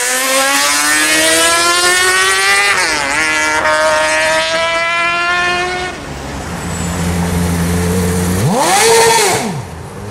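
Sport motorcycle accelerating hard, its engine pitch climbing steadily with a short dip at a gear change about three seconds in. Then a lower, steady engine running, and one quick rev up and back down near the end.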